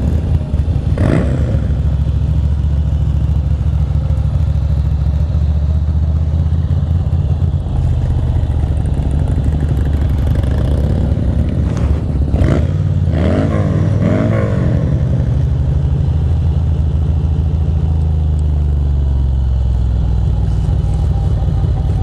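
Ducati Monster 620's air-cooled L-twin engine running as the bike rides off at low speed, its note shifting with throttle and gear changes.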